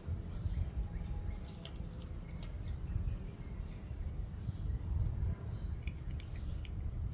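Steady low rumble with scattered faint high bird chirps and a few light clicks.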